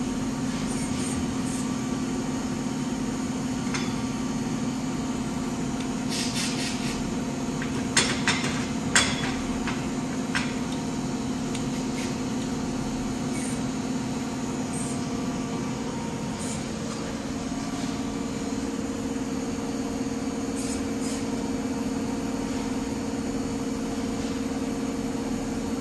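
A steady machine hum, with its pitch shifting slightly a little past halfway, and a few sharp metal knocks and clanks about six, eight, nine and ten seconds in.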